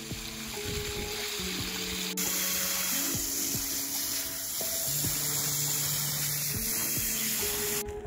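A garden hose spraying a steady stream of water onto loose soil, a continuous hiss that stops abruptly near the end. Background music plays over it.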